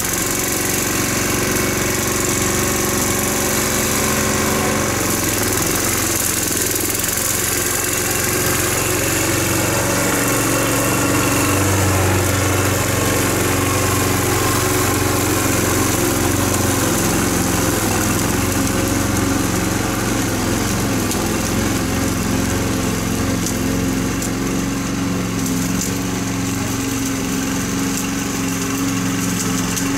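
Small gas engine of a walk-behind lawn machine, a power rake or mower, running steadily as it is pushed across the lawn, its pitch shifting slightly now and then with the load.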